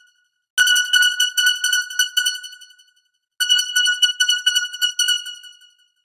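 Emergency alert system (EAS) alarm: a high synthesized tone pulsing about three times a second, sounding in two bursts of roughly two and a half seconds, each fading out into a brief silence before the next begins.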